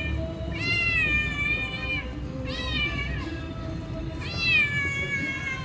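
Domestic cat meowing three times, long drawn-out meows, the last the longest and loudest.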